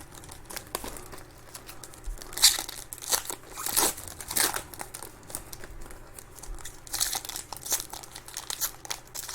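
Trading-card pack wrappers crinkling and tearing as packs are opened and cards handled, in scattered short rustles, the loudest about two and a half, four and seven seconds in.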